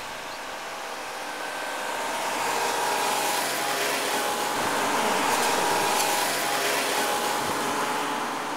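A car driving along a road: steady engine and tyre noise from a BMW 3 Series estate. It grows louder over the first few seconds and then holds steady.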